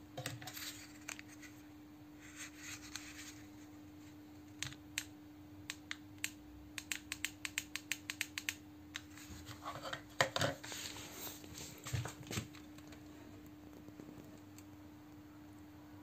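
Buttons of a plastic TV-box remote control clicking as they are pressed, a quick run of presses at about four or five a second, followed by louder rubbing and knocks of handling. A faint steady hum runs underneath.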